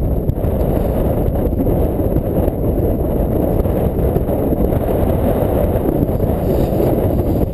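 Wind buffeting an action camera's microphone: a loud, steady low rumble.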